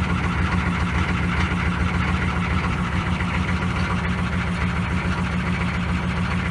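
GM 6.5-litre turbo-diesel V8 idling steadily, warming up after a cold start on freshly fitted glow plugs.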